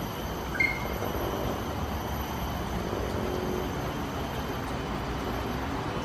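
A greater racket-tailed drongo gives one short, clear call about half a second in, over a steady low background rumble.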